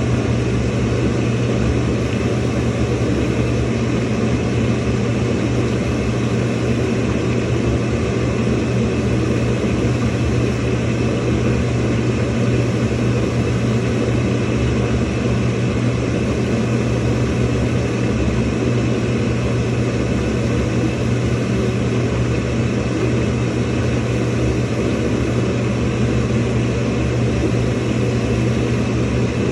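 Samsung washing machine filling with water: a steady rush of water with a low hum, unchanging throughout.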